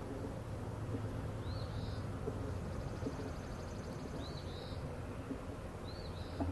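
Honeybees buzzing in a steady hum, stirred up after the last bees were dumped and brushed out of the nuc box. A bird chirps three times over it.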